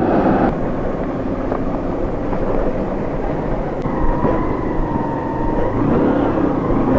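Motorcycle riding at road speed: a steady engine drone under wind rushing over the action camera's microphone, with a faint steady whine coming in about four seconds in.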